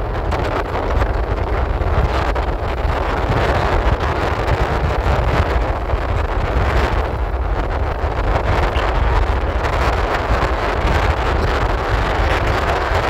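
Wind buffeting the microphone over a steady low rumble, with no clear rhythm or pitched tone.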